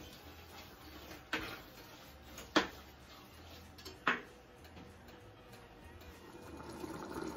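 A cooking utensil knocking against a stainless steel stockpot three times, about a second and a half apart, while ground beef is stirred in it.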